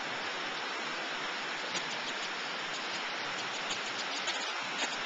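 Steady rushing of a brook at flood stage, white water running fast and hard.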